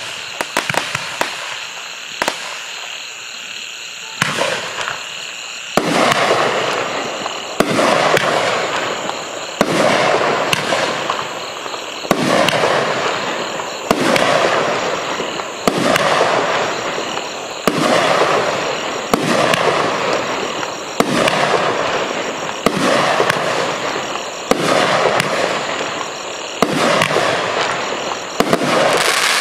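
Magnus Fireworks "Things Are Heating Up" 57-shot consumer fireworks cake firing. There are scattered sharp pops and clicks for the first few seconds. Then, from about six seconds in, a shot goes off about every two seconds, each a sharp report followed by a noisy trail that dies away before the next.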